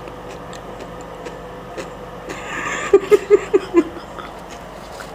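A person laughing briefly, a breathy snicker followed by five quick "ha" bursts about three seconds in, over a steady low background hum.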